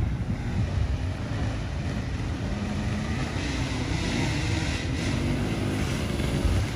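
Dirt bike engine running and revving as the bike rides through deep mud ruts, its pitch rising and falling, becoming more distinct from about halfway in.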